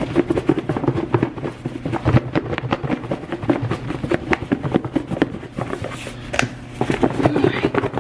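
Chicken wings in flour being shaken in a lidded plastic container, knocking against its walls in a rapid, irregular clatter.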